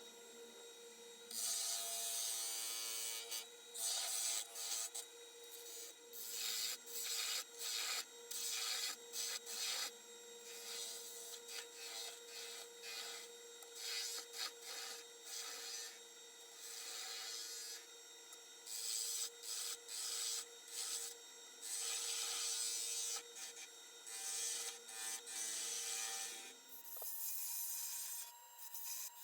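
Wood lathe running with a steady hum while a turning tool cuts a hardwood spindle in repeated short, hissing passes, shaping a Morse taper. The lathe's hum stops near the end.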